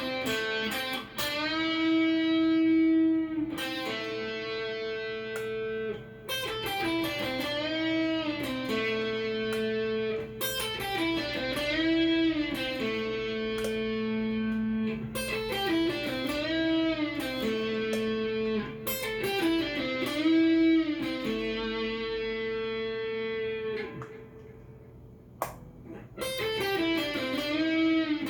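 Cort S series electric guitar played through a Fender amp: sustained single notes with string bends that rise and fall back, in short repeated phrases.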